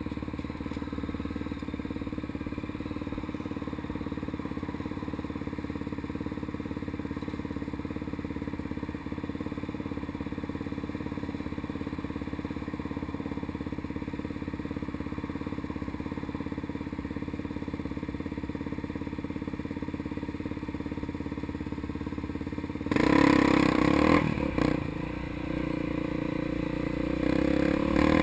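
Honda Tornado trail bike's single-cylinder four-stroke engine idling steadily while stopped. About 23 seconds in it revs up sharply as the bike pulls away, eases off briefly, then picks up again near the end.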